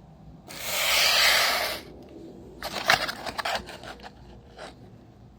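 Packaging handled close to the microphone: a loud rustling swish about half a second in, then about a second of crinkling crackles and one brief rustle near the end.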